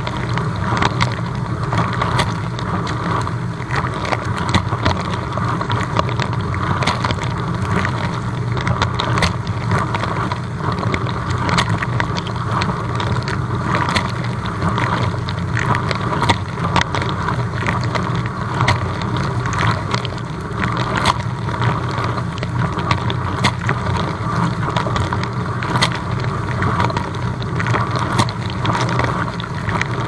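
Dishwasher running its wash cycle, heard from inside the tub: a steady hiss and splash of water spraying over the dishes, over a low hum from the pump, with frequent small ticks of spray hitting the dishes and racks.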